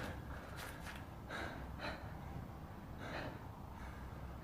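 A few short, faint breaths from a person, soft airy puffs over low background hum.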